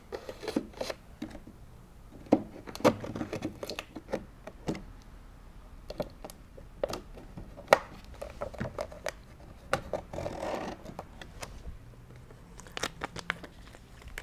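A utility knife scraping and cutting through a paper protective label stuck over a wall box, heard as scattered scratches and clicks. About ten seconds in there is a longer rustle as the cut cover is pulled away.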